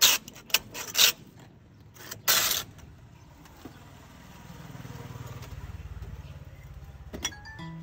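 Block of ice pushed back and forth over the blade of a hand-worked wooden ice shaver, several sharp rasping scrapes in the first two and a half seconds. Then a low rumble swells and fades, and music starts near the end.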